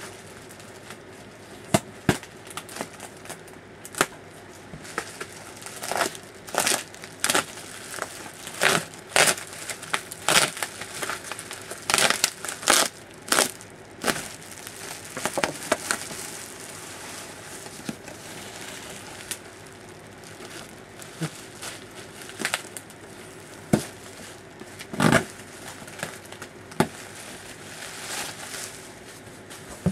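Bubble wrap being pulled and torn off a boxed action figure, crinkling and crackling in irregular bursts, with packing tape being ripped away.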